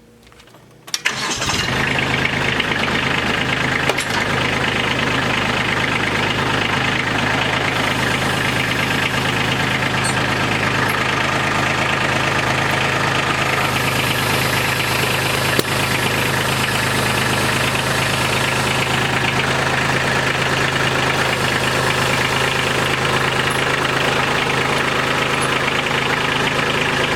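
Kubota B2601 compact tractor's three-cylinder diesel engine starting up about a second in, then running steadily at idle.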